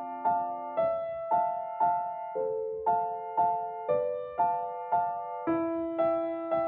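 Instrumental piano music: a gentle melody of struck notes over held chords, about two notes a second, with no singing.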